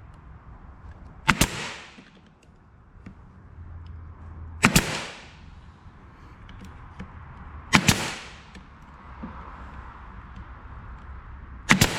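Brad nailer firing four times, about three seconds apart, as tabletop slats are nailed down; each shot is a sharp snap with a short hiss after it.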